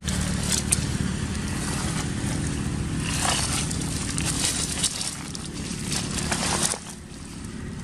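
A steady low engine rumble with dry leaves crackling now and then; the rumble drops away about seven seconds in.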